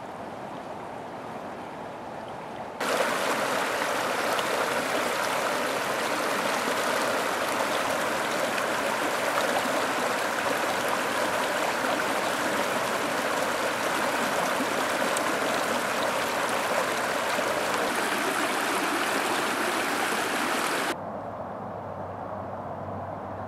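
Creek water flowing over rocks: a soft trickle at first, then about three seconds in it cuts sharply to loud rushing whitewater, which drops off near the end to a quieter, calmer flow with a low hum beneath it.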